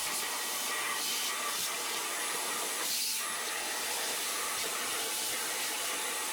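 Shop vacuum running steadily with a rushing hiss, sucking loose debris out of an engine's intake area; the texture shifts briefly about three seconds in.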